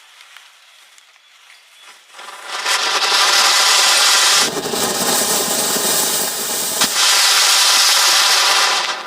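A loud, sustained fizzing hiss of burning pyrotechnics, from match heads and fireworks flaring in a matchstick chain reaction. It swells in about two seconds in, changes partway through with one sharp crack, and cuts off just before the end.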